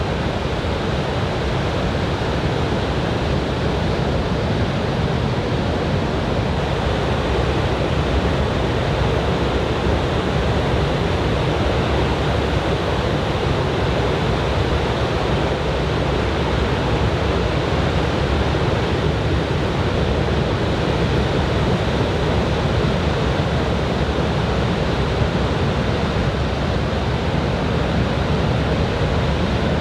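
Surf from a typhoon swell breaking on a beach: a steady, even wash of wave noise with no single crash standing out.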